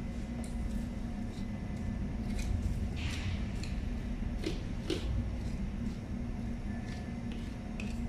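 Boning knife cutting and scraping through a whole pork carcass, a scattering of short soft clicks and scrapes, a few sharper ones in the middle. Under it a steady low machinery hum.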